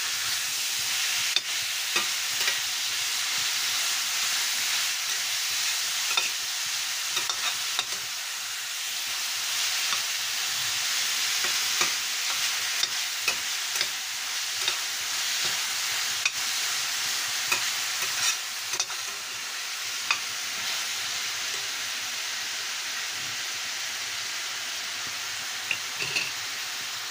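Minced pork sizzling in oil in a stainless steel frying pan, with a metal spatula scraping the pan and clinking against it now and then as the meat is stirred.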